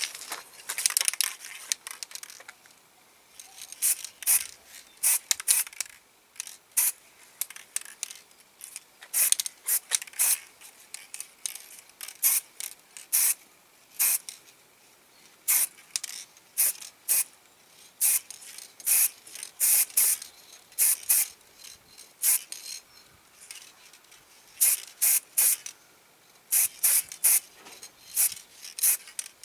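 Spray paint hissing out in many short, irregular bursts, with a longer spray in the first couple of seconds: a coat of colour being sprayed onto a diecast model's parts.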